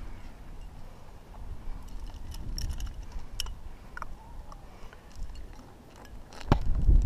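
Metal climbing gear (carabiners and cams on the harness) clinking now and then as the climber moves on the rock, over a low rumble that grows louder about six and a half seconds in.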